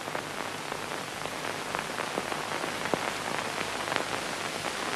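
Steady hiss with scattered faint crackles and a low hum: the background noise of an old optical film soundtrack.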